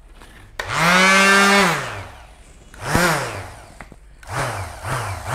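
Ingco electric finishing sander switched on and off without load: its motor whines up in pitch, runs steadily for about a second and winds down, followed by several shorter on-off blips.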